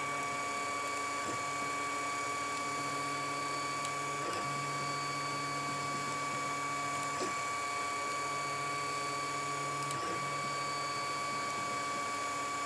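Fa)(a 3D open-source 3D printer running a print: a steady high whine from its motors, under which a low hum shifts pitch every few seconds, each shift with a faint click as the print head changes direction.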